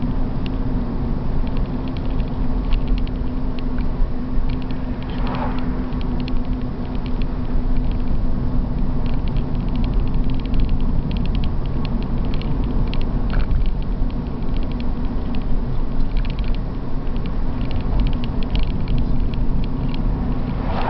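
BMW 328's straight-six engine and road noise heard from inside the cabin while driving, a steady low drone, with many light ticks and creaks from the interior.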